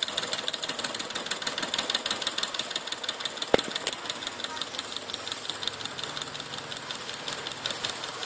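Homemade tin-can Stirling engine running, its flywheel and crank ticking in a steady rhythm of about five ticks a second as it turns an LED generator. One sharper knock about three and a half seconds in.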